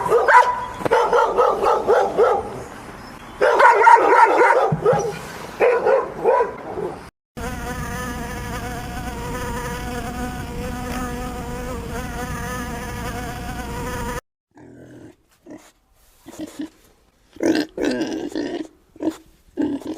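A series of animal sounds: for about seven seconds, broken pitched calls; then about seven seconds of a steady, even buzz like a flying insect; then a few short, separate calls near the end.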